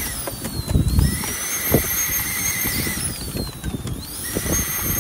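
Miniature live-steam LNER V3 tank locomotive running, with a thin, high whistling squeal over its uneven low running noise; the squeal's pitch dips and recovers twice. It is a funny noise that the owner believes comes from steam leaking at the joint on the steam pipe going onto the top of the cylinder block.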